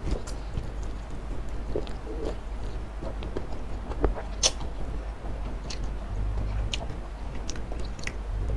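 Close-miked eating sounds: a man slurps spicy instant noodles and chews wetly, with short smacking and clicking sounds, one louder near the middle.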